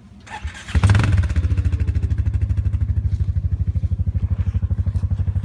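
A small engine catches about a second in and then runs steadily with a fast, even beat.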